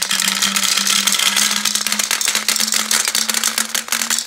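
Glass marbles poured from a beaker into a tall plastic graduated cylinder: a dense run of clicks and clatters as they tumble down the tube and pile up. A faint low tone underneath rises slowly in pitch.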